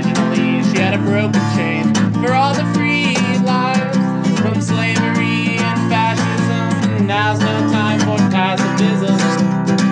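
Acoustic guitar strummed in a quick, steady rhythm, the instrumental close of a folk-punk song.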